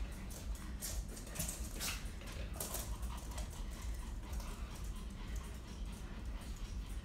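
A small fluffy dog moving about close by, with irregular short breathy and scuffling sounds over a steady low rumble.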